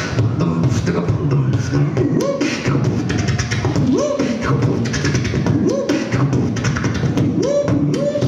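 Human beatboxing into a handheld microphone: rapid clicks and snare-like hits over a low bass line. From about two seconds in, a hummed tone swoops upward every second or two in time with the beat.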